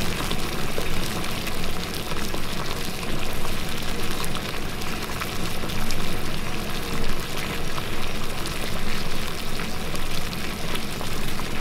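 Tapioca pearls boiling in a pot of water at a rolling boil: a steady bubbling hiss full of small pops.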